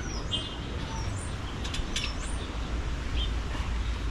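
Small songbirds chirping: a handful of short, high, rising chirps in the first couple of seconds, over a low steady rumble.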